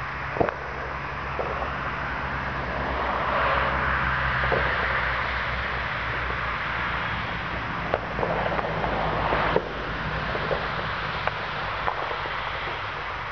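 Scattered distant New Year's Eve firecracker bangs, single sharp pops at irregular intervals, the loudest about half a second in and just before ten seconds, over a steady outdoor rumble and hiss. A broader swell of noise rises and fades around four seconds in.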